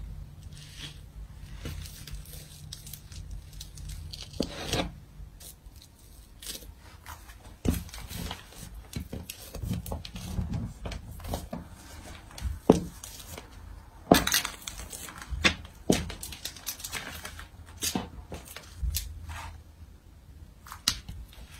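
High-heeled boots stamping and grinding on soft food and paper over a wooden floor: irregular squishing, crunching and paper crinkling, broken by sharp heel clacks on the boards. The loudest strikes come about halfway through.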